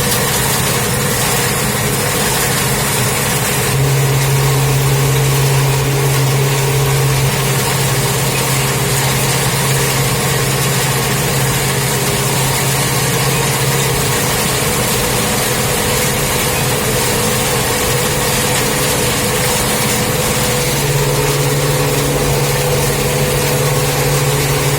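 Farm tractor engine running steadily at working speed while turning hay swaths, a continuous hum whose low note strengthens and eases off a few times.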